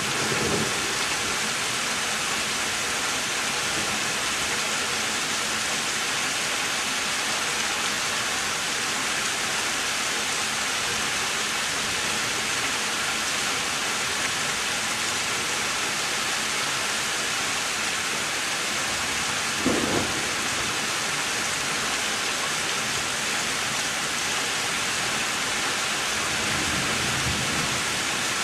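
Heavy rain falling steadily during a severe thunderstorm. Thunder rumbles briefly near the start, again about two-thirds of the way through, and once more near the end.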